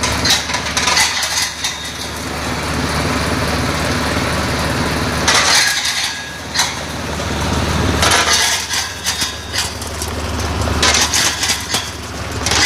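Candlenut shelling machine running with a steady low motor hum, broken by several spells of rapid cracking and rattling as the nuts are flung against the housing and their shells split.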